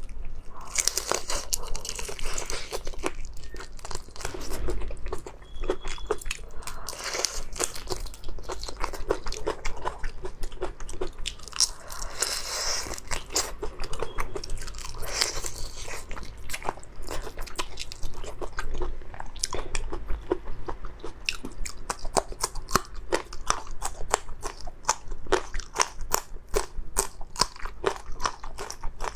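Close-miked crunching and chewing as a large raw marinated prawn is bitten into, shell and all, with many small sharp cracks coming irregularly.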